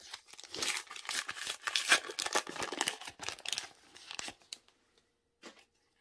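Plastic foil wrapper of a Topps Match Attax trading-card pack being torn open and crinkled by hand. The crackling is dense and stops about four seconds in.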